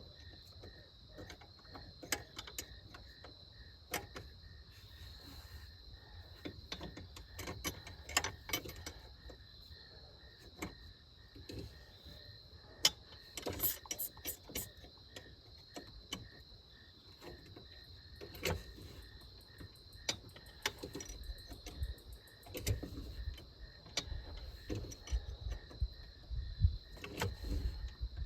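Scattered sharp clicks and knocks of hand tools and metal parts being worked while a bracket bolt is tightened, with dull thumps near the end. A steady high chirring of crickets runs behind.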